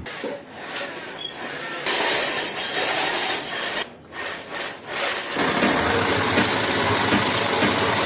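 Harsh, hissing noise from work tools on a construction site. It changes abruptly about two, four and five and a half seconds in, then runs steady.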